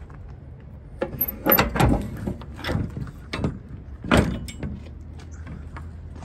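Metal clanks and scrapes of a semi-trailer's rear swing door being unlatched and swung open: a string of loud knocks over about three seconds, then quieter rattles.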